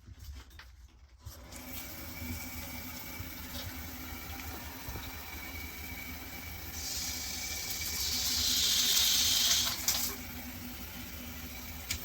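Handheld shower head spraying water into a bathtub, the rush of water coming on about a second in, then swelling louder and hissier for about three seconds past the middle before settling back to a steady spray.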